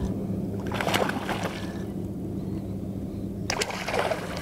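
A hooked bass splashing and thrashing at the water's surface while being reeled toward the boat, in two bursts, about a second in and again near the end, over a steady low hum.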